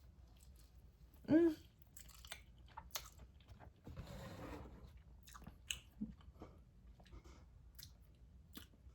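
A person chewing a mouthful of spicy noodles, with soft wet mouth clicks throughout. A short closed-mouth "mm" comes about a second in, and a breathy rush of air a few seconds later.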